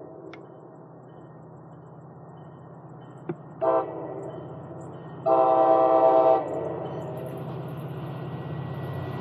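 Approaching MBTA commuter rail diesel locomotive sounding its horn: a short blast about three and a half seconds in, then a longer blast around five seconds in, over a low steady engine drone. The train noise builds toward the end as it nears, and a sharp click comes just before the short blast.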